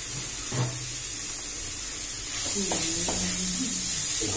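Chicken pieces and vegetables sizzling in an oiled nonstick kadai over a gas flame, with a spatula stirring and scraping through them. The sizzle steps up about two seconds in, and a few quick spatula strokes come near the end.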